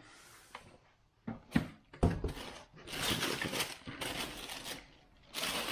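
Cardboard shoebox being handled and opened, with a few sharp knocks in the first two seconds, then tissue paper rustling and crinkling as it is pulled back from the boot.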